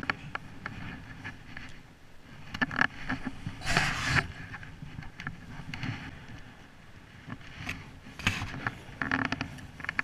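Handling noise: a jacket sleeve rustling and scraping close to the microphone, with scattered light clicks, as a spinning rod and reel are handled. The loudest scrape comes about four seconds in, with more near the end.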